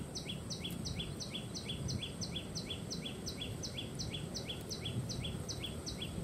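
A bird repeating a short two-note chirp, about three times a second. Each chirp is a higher falling note followed by a lower one, kept very even, over a low rumble of outdoor background noise.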